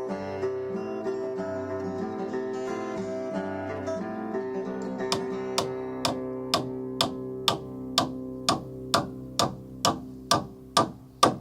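A steel hammer driving the last nail into a timber frame: quick, evenly spaced blows, a little over two a second, starting about halfway through and growing louder toward the end. Acoustic guitar music plays throughout.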